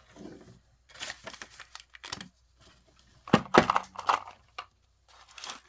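Plastic packaging crinkling and tearing in irregular crackles as a Miniverse capsule ball is unwrapped and opened by hand, busiest about three seconds in.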